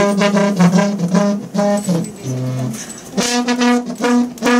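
A coiled garden hose blown like a bugle, giving a brassy fanfare: a run of short notes, a lower held note about halfway, then longer notes.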